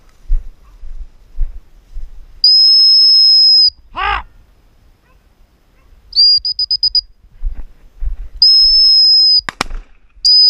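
Dog training whistle blown at one high pitch: a long blast, a quick run of short pips, another long blast, and a short blast near the end, signalling a retrieving dog. A short pitched call is heard between the first blast and the pips, and there are a couple of sharp clicks after the second long blast.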